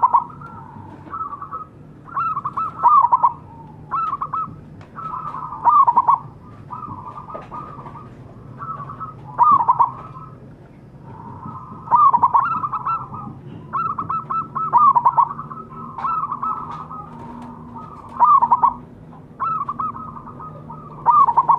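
Zebra dove (perkutut) cooing: its staccato song of quick, clipped, stuttering notes, repeated phrase after phrase every second or two.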